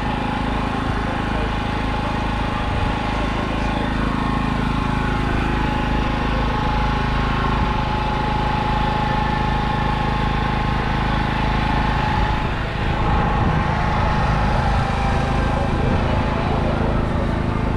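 An engine running steadily at idle: a low, even drone with a steady mid-pitched whine over it.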